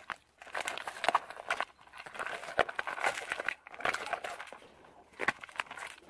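Small cosmetics such as lip balm and lipstick tubes being handled and pushed into a small coated-canvas pouch: irregular rustling with light clicks and knocks.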